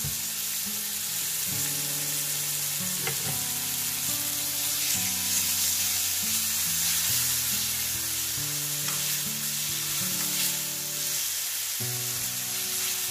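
Beef steaks sizzling steadily in olive oil on a very hot Himalayan salt block. Background music of held notes plays underneath.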